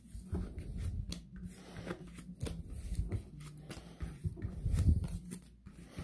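Baseball cards in plastic penny sleeves being picked up off a tabletop and gathered into a stack by hand: irregular soft clicks, slides and taps of plastic on plastic, with a louder thump about five seconds in.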